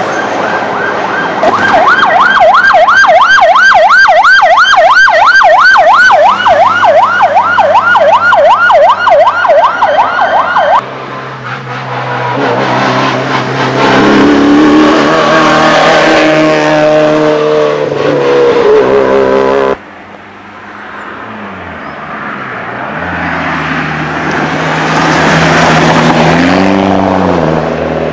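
A siren wailing in fast up-and-down sweeps, about three a second, for some nine seconds, then cutting off. Then rally cars rush past one at a time at speed, engines revving up and down.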